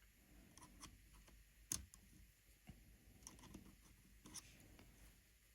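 Near silence with faint small clicks and scratches from tweezers working at the touchscreen digitizer ribbon-cable connector inside a Nintendo DS Lite. The sharpest click comes nearly two seconds in.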